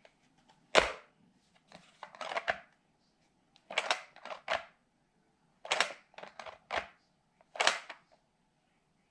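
Plastic clicks and clacks from a Play-Doh toy grill's lid and lever handle being pressed and worked: about a dozen short, sharp knocks in small groups, the loudest about a second in.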